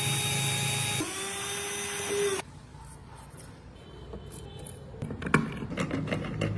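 A handheld power tool running with a steady whine, changing pitch about a second in and cutting off about two and a half seconds in. Near the end come a series of light clicks and knocks.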